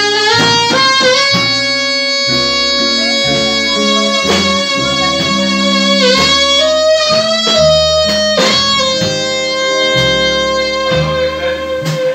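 Live small-group jazz: saxophone and hollow-body electric guitar with drums, long held melody notes bending slightly in pitch over a moving low line.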